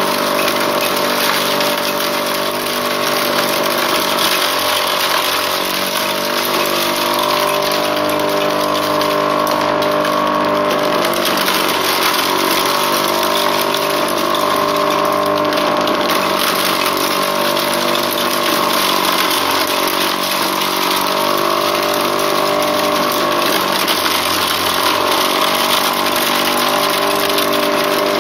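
Motor-driven wooden corn sheller running steadily, its motor hum wavering slightly in pitch every few seconds.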